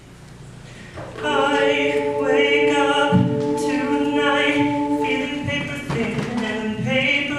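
All-male a cappella group singing: a held chord of several voices starts about a second in, and lower voices join around three seconds in.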